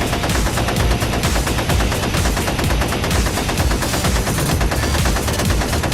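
Rapid, continuous automatic gunfire, about ten shots a second over a deep rumble, like a machine-gun sound effect.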